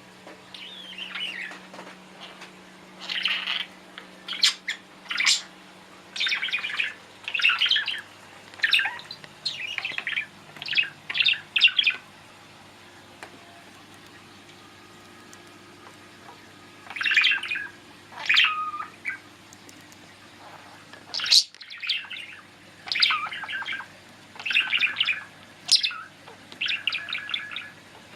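Budgerigar chattering and chirping in quick bursts of warbled notes, with a pause of a few seconds near the middle.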